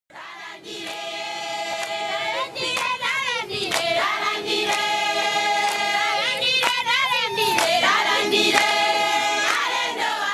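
A group of voices singing together in held, overlapping notes, with high warbling cries about three seconds in and again about seven seconds in, and a few sharp hits.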